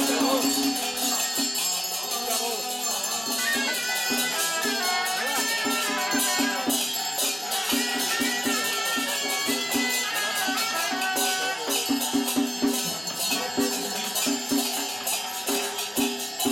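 Traditional temple music: a wavering reed-horn melody over rapid, steady clashing of cymbals and percussion.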